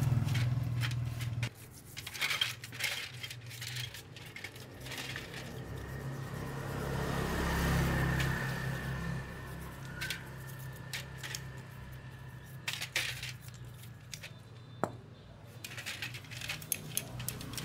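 A motorcycle carburetor being scrubbed with a toothbrush in a metal tray of gasoline: scattered light metallic clicks and clinks as the carburetor body and small parts knock against the tray, with soft stretches of brushing in between.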